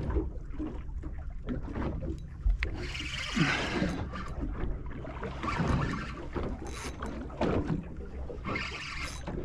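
Choppy water slapping against the hull of a small boat, swelling in surges every couple of seconds, with wind on the microphone and a few small clicks.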